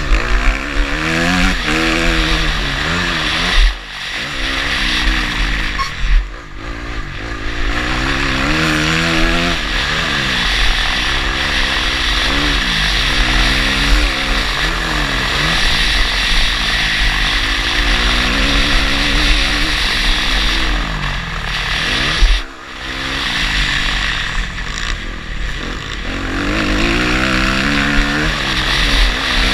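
Motocross bike engine revving up and falling back again and again as it runs through the gears, with heavy wind rush on the microphone. Three times the engine note cuts off sharply as the throttle is closed.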